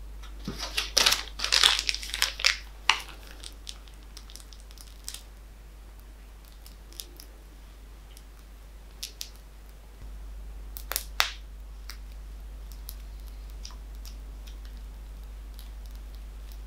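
Thin plastic piping bag crinkling and rustling as it is handled, for about two and a half seconds starting half a second in, then a few scattered soft clicks, two sharper ones about eleven seconds in.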